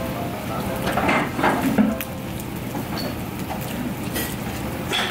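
Metal spoon clinking and scraping on the pan of cheese fried rice while eating, over a steady low restaurant hum.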